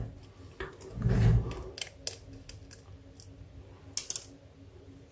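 Light clicks and taps of a smartphone and small repair tools being handled on a wooden desk, with a dull low thump about a second in and a sharper cluster of clicks near the end.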